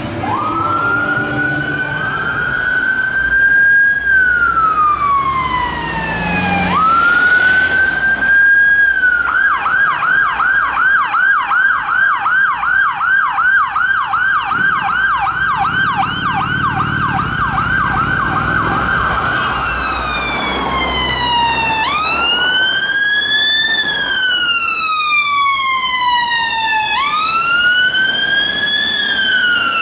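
Sirens of UK emergency vehicles on blue lights, a police van, an ambulance and a fire service van in turn. First a wail slowly rising and falling, then a rapid yelp of about three sweeps a second for around ten seconds. Near the end comes a brighter, harsher wail sweeping slowly up and down.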